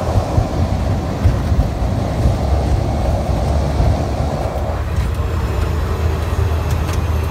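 Cabin noise of a Cessna 208 Caravan amphibian's turboprop engine and propeller, a loud steady low rumble as the floatplane moves on the water after landing. A higher band of noise in the mix fades out about halfway through.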